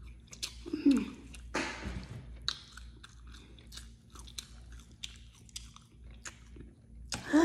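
Close-miked chewing of a mouthful of soft food, with a run of sharp wet mouth clicks and smacks.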